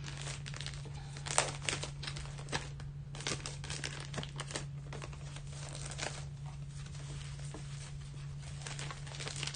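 Crinkling and crackling of a thin clear plastic bag as a stack of papers is handled and pulled out of it by hand, in irregular bursts of crackles.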